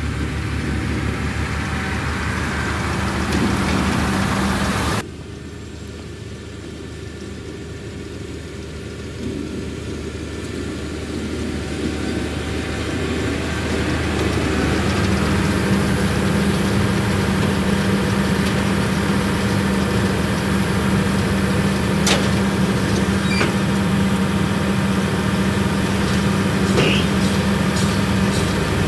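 Massey Ferguson 7616 tractor's six-cylinder diesel engine running steadily with a Claas Variant round baler working behind it, passing close by. The level drops suddenly about five seconds in, then builds again as the machines come near, with a few sharp clicks near the end.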